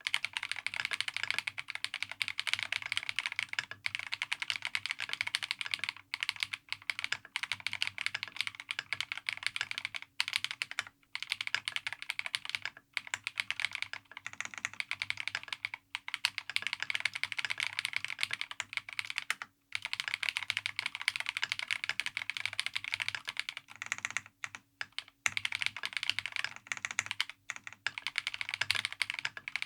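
Fast, continuous typing on a KiiBoom Phantom 81 V2 transparent mechanical keyboard: a dense patter of keystroke clacks with a few brief pauses.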